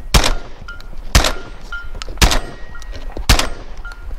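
12-gauge shotgun fired four times in steady succession, about one shot a second.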